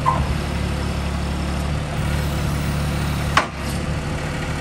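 Mini skid steer loader's engine idling steadily, with a single sharp click or knock about three and a half seconds in.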